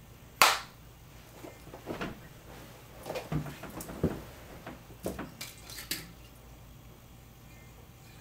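A sharp click about half a second in, then scattered light knocks, clinks and rustles of a person shifting on a bed and handling small objects, a phone and a glass bottle among them.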